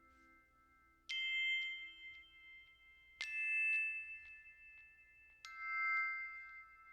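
Background music closing with three struck bell-like chime notes about two seconds apart, each ringing on and slowly fading.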